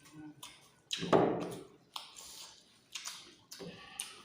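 Eating sounds close to the microphone: several short chewing and mouth noises, the loudest about a second in.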